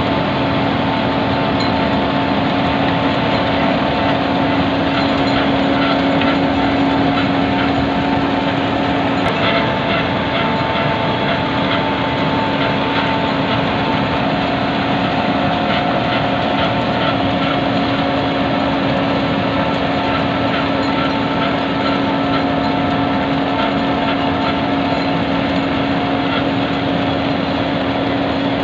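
Wirtgen cold milling machine running steadily as its cutting drum mills off the old surface. A constant diesel engine hum sits over a continuous grinding noise.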